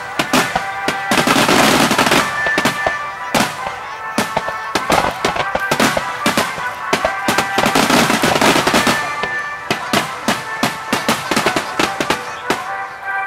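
Aerial fireworks shells bursting one after another, with sharp bangs and dense stretches of crackling about a second in and again around eight seconds in, over steady background music.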